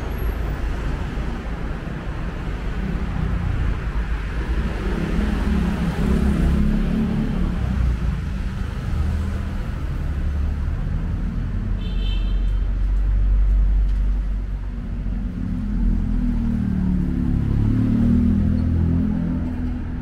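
Street traffic passing close by: a steady rumble of vehicle engines that swells twice as vehicles go past, with a short high tone about twelve seconds in.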